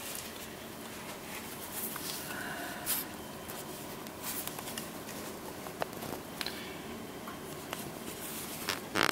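Handling noise: scattered light clicks and rustles over a steady low room hum, with a louder brief rustle near the end.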